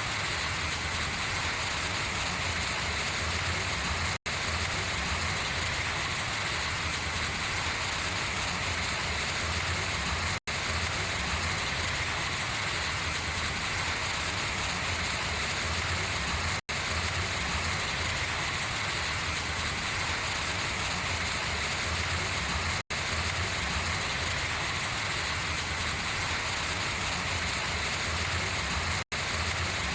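Steady rain pattering on and running off large leaves, broken by a split-second gap of silence about every six seconds.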